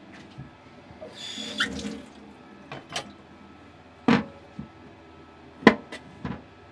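A kitchen tap runs for about a second as a carrot is rinsed. Then come several knocks of the carrot and a kitchen knife on a wooden cutting board: a dull thump about four seconds in and a sharper knock near the end.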